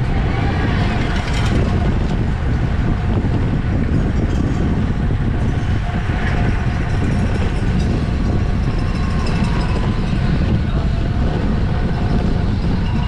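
Wind rushing over a racing cyclist's camera microphone, a steady low rumble at race speed.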